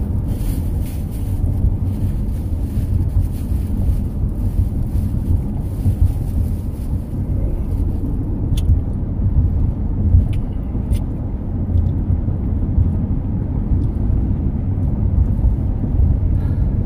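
Steady low rumble of road and engine noise inside a moving car's cabin. A few faint clicks come roughly eight to eleven seconds in.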